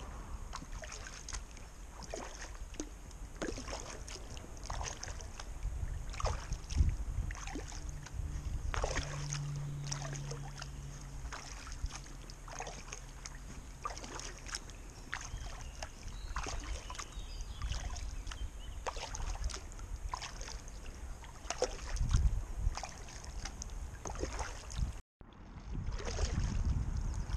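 Paddle strokes beside an inflatable kayak on calm water: irregular splashes and drips as the blades dip in and lift out. A faint low hum rises and fades about ten seconds in.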